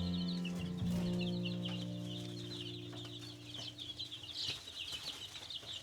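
A brooder full of week-old baby chicks peeping continuously in a dense, rapid chatter. Sustained music chords sound underneath and fade out about four seconds in.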